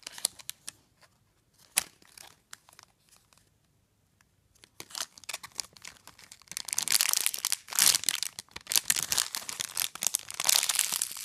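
Clear plastic packaging bag crinkling as hands squeeze and turn a bagged foam squishy toy. A few scattered crackles at first, then dense, loud crinkling from about six and a half seconds in.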